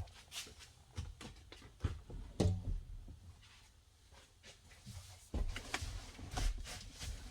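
Scattered soft clicks and knocks of things being handled and moved about in a car's cabin, with a low rumble between them.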